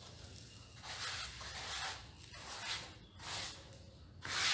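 Hand float rubbed across a fresh lime-and-cement plaster patch on a wall, in several scratchy strokes, the last and loudest starting near the end.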